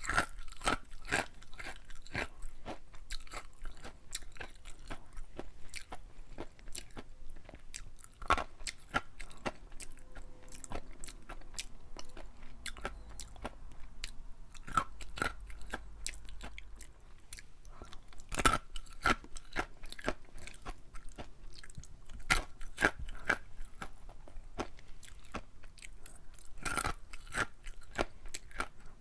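Wasabi-coated dried green peas being bitten and chewed: a dense run of sharp, crisp crunches, with a few louder cracks now and then.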